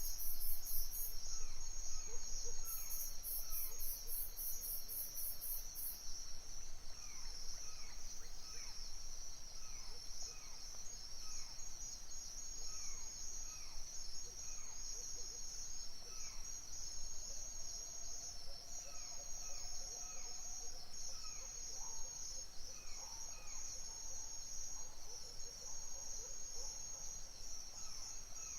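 Crickets chirping in a dense, steady high trill. In the first few seconds a higher, rapidly pulsing insect trill joins it twice, and short falling calls recur about once a second under the chorus.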